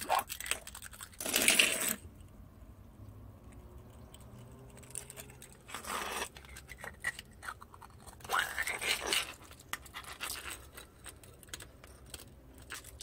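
Shards of broken green glass beer bottle clinking and scraping as they are picked up and handled, in several short bursts with scattered small clicks between.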